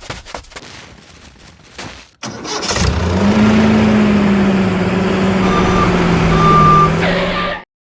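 A small motor starts up and runs steadily for about five seconds at a constant tone that rises slightly, then slowly drops as if under load. It cuts off abruptly near the end. Faint clicking comes before it.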